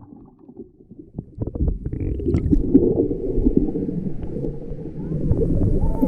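Muffled, low water sloshing and gurgling against the kayak and microphone, with small knocks, starting about a second in.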